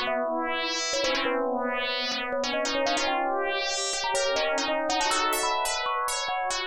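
Mobile phone ringtone: a synthesized electric-piano melody of many short struck notes over held chords.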